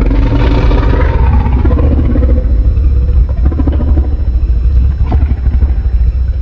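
Godzilla (2014) monster sound effect: a loud, deep rumble with clattering knocks that starts suddenly and begins to die away near the end.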